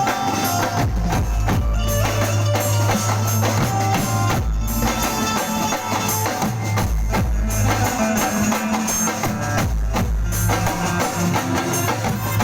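Live garba band music played loud through a PA sound system, a drum kit with a heavy bass drum driving a steady beat under sustained instrument melody, as the band's sound is balanced.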